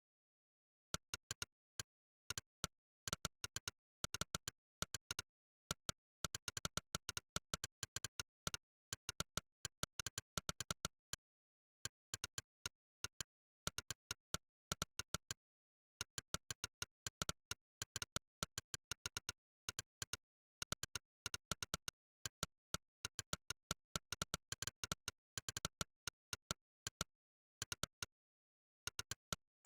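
Monkeytype's synthesized 'click' keypress sound, one short sharp click for each keystroke, coming in fast, uneven runs at typing speed and broken by short pauses of about a second. The gaps between clicks are dead silent.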